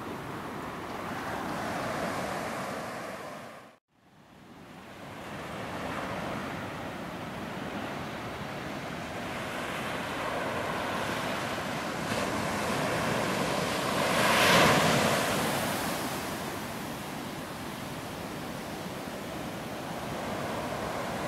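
Seawater washing over sand and pebbles at the shore, a steady surf-like rush that cuts out for a moment about four seconds in and rises to a louder surge about two-thirds of the way through.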